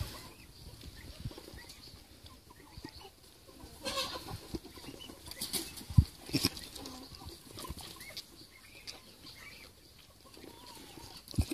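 A young goat kid slurping milk from a plastic bowl, with small wet clicks and a couple of sharp knocks against the bowl, the loudest about halfway through and another near the end. Chickens cluck in the background.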